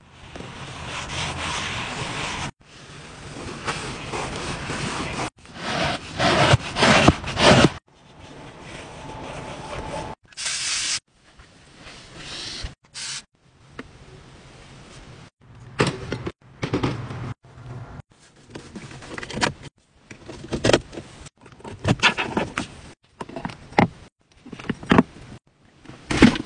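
Microfiber cloth wiping and rubbing the dashboard and mirror inside an SUV: short scrubbing and swishing strokes in stretches that cut off abruptly, with a short hiss about ten seconds in.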